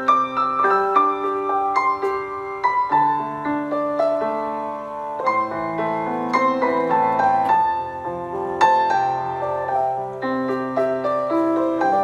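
Background piano music: a calm melody of struck notes ringing over held chords.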